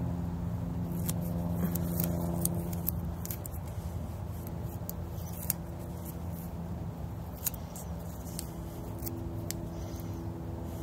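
Scattered light clicks and soft handling noise as grafting tape is worked over the cut top of a scion, over a steady low hum.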